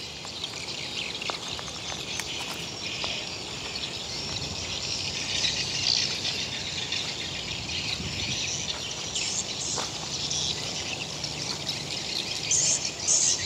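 Insects chirring in a steady high chorus, with a few faint clicks.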